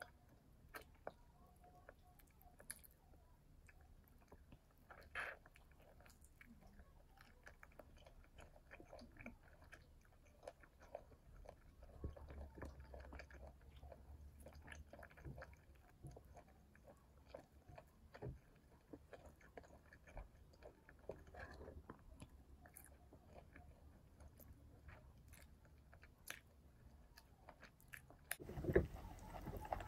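Soft, close-miked eating sounds from ayam geprek (smashed fried chicken): biting and chewing meat off the bone, with many small wet mouth clicks. Louder knocks come near the end.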